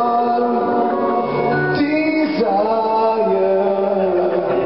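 Live pop music: a man singing long held notes into a microphone, backed by keyboard.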